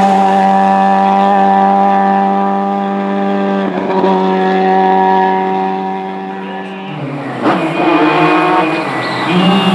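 A rally car's engine held at steady high revs for about seven seconds, then dropping in pitch. Near the end a Lancia Stratos's Ferrari V6 revs up and down through a hairpin.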